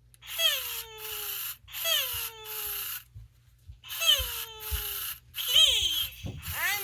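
A 1998 Furby talking through its replacement speaker: a run of high, chirpy electronic calls that slide down in pitch, coming in pairs with short pauses between, a sign that the once-dead speaker now works.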